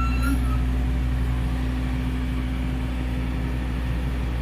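Steady low mechanical hum, with a brief high chirp right at the start.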